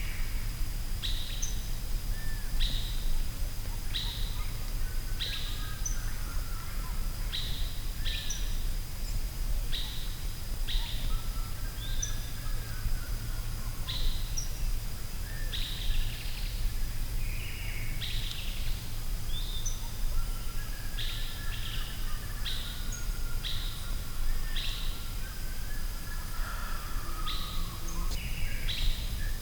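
Forest ambience of birds calling: short high chirps, each falling in pitch, repeat about once a second, with softer warbling calls lower down. A steady low rumble and a thin constant high tone run underneath.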